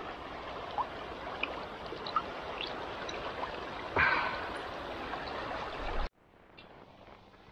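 Shallow stony river water flowing close by: a steady rush with small splashes and one louder splash about four seconds in. The rush cuts off suddenly about six seconds in, leaving much quieter background.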